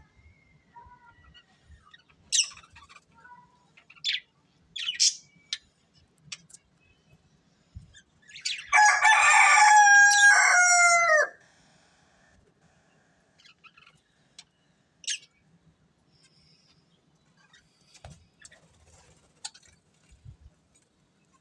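Budgerigars calling with short, scattered chirps, and one loud, drawn-out call lasting about two and a half seconds, starting about nine seconds in and dropping in pitch at its end.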